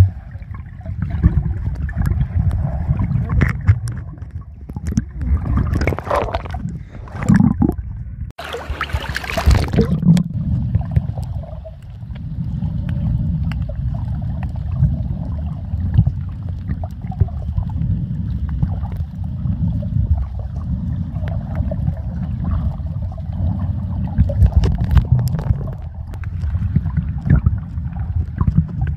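Muffled underwater water rumble and gurgling, picked up by a camera held beneath the surface while snorkeling, with a brief splash about nine seconds in.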